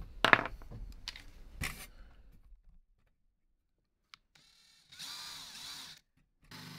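Small metal parts clacking against a sheet-metal backing as they are handled. About five seconds in, a cordless drill runs for about a second, boring into the thin sheet metal with a high, wavering whine. Near the end another steady run of the drill starts.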